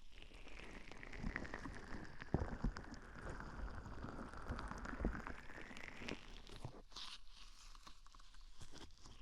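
Close, crackly scratching and rustling right at the microphone's ear, with irregular sharp ticks and a few louder clicks: ear-cleaning ASMR tool work.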